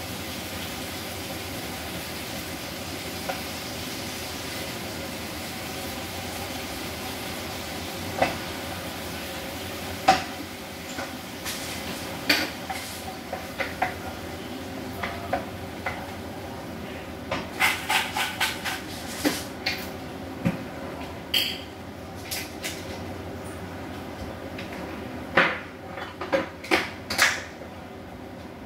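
Wooden spoon stirring, scraping and knocking against a frying pan of tomatoes and garlic, over a steady hiss. The knocks come singly at first, then in quick runs in the second half.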